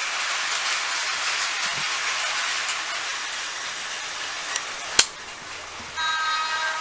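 Battery-powered Plarail toy trains running on plastic track: a steady noise of small motors and plastic wheels that drops away a little over four seconds in. A single sharp click about five seconds in, then a short electronic tone of several steady pitches near the end.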